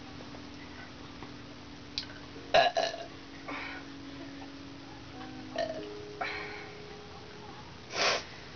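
A string of burps brought up by drinking fizzy pop: several short ones, and a longer, loudest burp near the end.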